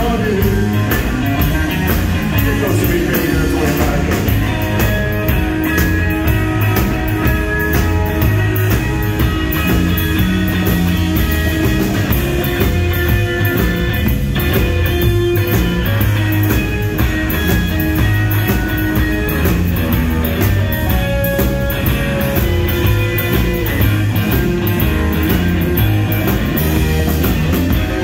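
Live blues-rock trio playing: electric guitar over electric bass and a drum kit keeping a steady beat.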